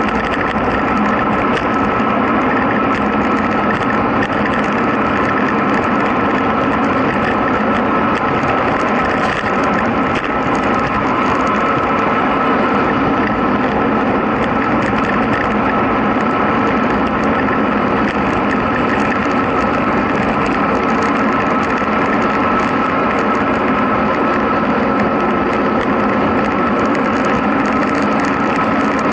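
Steady rush of wind on the microphone and tyre noise from a road bicycle descending fast on asphalt, at about 40–47 km/h, with a steady high whine through it.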